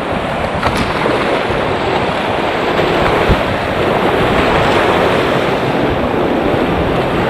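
Whitewater rapids rushing steadily and loudly close to the microphone, with water and wind buffeting the mic and a couple of faint knocks.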